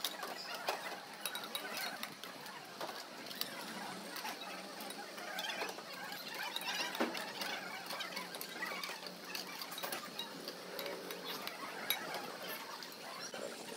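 Ceramic plates and steel serving spoons clinking and clattering as food is ladled out and plates are stacked. Scattered sharp clicks sound over a steady busy background.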